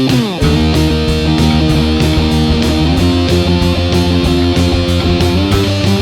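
Background rock music led by electric guitar over a steady beat, opening with a downward guitar slide.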